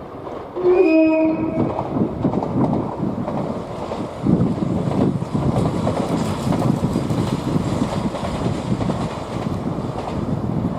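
A train sounds a short horn blast about a second in, its pitch stepping slightly down, then runs past with a continuous rumble of wheels on rail while strong wind buffets the microphone.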